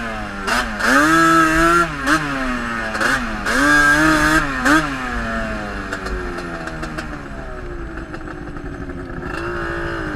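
Sport quad engine revving in repeated throttle bursts, its pitch rising and falling several times in the first five seconds. It then winds down in a long falling tone and picks up again near the end.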